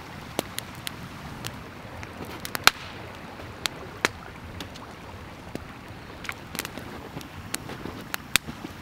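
Wood campfire crackling: irregular sharp pops and snaps, several a second, the loudest about a third of the way in, over a steady background rush.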